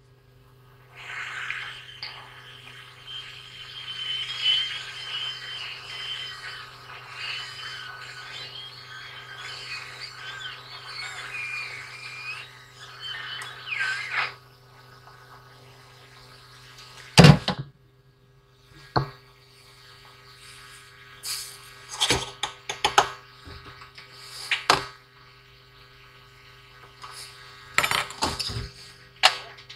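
Hot air rework gun blowing on a chip on a laptop motherboard to desolder it for BIOS reprogramming: a hissing rush of air with a wavering whistle over a steady low hum, cutting off about fourteen seconds in. After that come scattered sharp clicks and knocks as the tweezers and tools are handled and set down.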